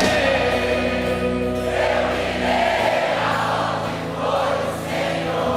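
Worship music: many voices singing together in a choir over steady held instrument chords.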